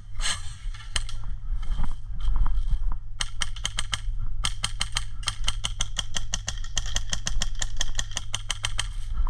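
Airsoft guns firing, a few single shots and then, about three seconds in, strings of rapid shots at about five or six a second with brief pauses. Wind rumbles on the microphone throughout.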